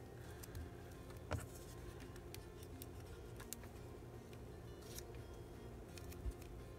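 Faint handling sounds of paper crafting: a few light clicks and taps as layered paper embellishments are pressed onto a tabletop and a liquid glue bottle is handled. The sharpest click comes about a second and a half in, over a faint steady hum.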